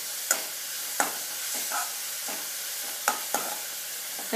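Chopped onion, green chilli and ginger-garlic paste sizzling in coconut oil in a metal kadai, with a spatula stirring and scraping against the pan. A few sharp scrapes stand out over the steady sizzle.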